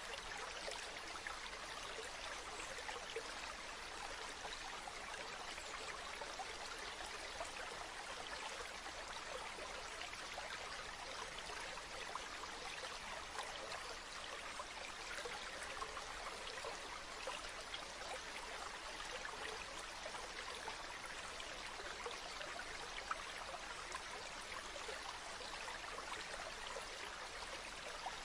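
Stream water flowing steadily, an even rush of running water flecked with small splashes and trickles.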